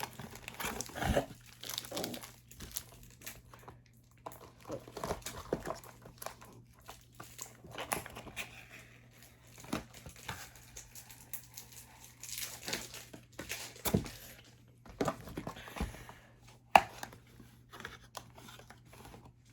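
Card-product packaging being handled: plastic wrap and foil packs crinkling, with irregular rustles and small clicks, and one sharp click near the end.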